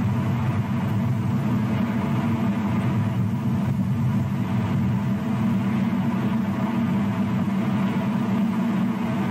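Steady low rumble of wind and rough surf on an outdoor microphone, unbroken, with no distinct calls or knocks.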